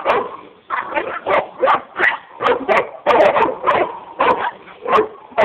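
Dog barking rapidly and repeatedly, about three short barks a second.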